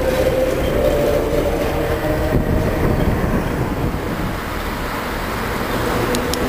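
Vintage Standard-type tram running along street rails, a steady rumble with a thin whine from its running gear in the first second. Two light clicks near the end.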